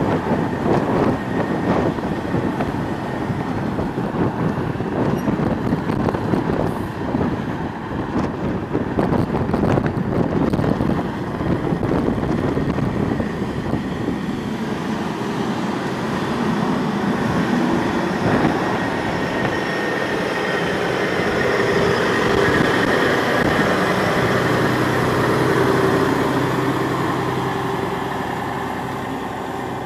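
Caterpillar C15 inline-six diesel engine of a Kenworth T800 semi running, with irregular rattles and knocks in the first part. It grows louder about two-thirds of the way through, then eases off near the end.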